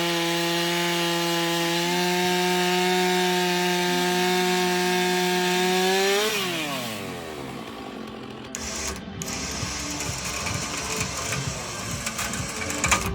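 Two-stroke chainsaw running at a steady high speed for about six seconds, then its revs falling away; after that a quieter, jumbled sound.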